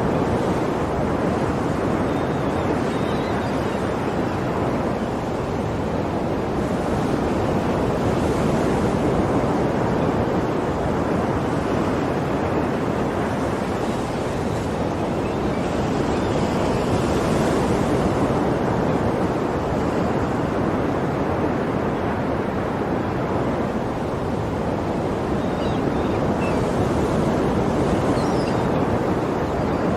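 Ocean waves breaking and washing on a shore in a continuous surf noise, swelling slightly every several seconds, with some wind.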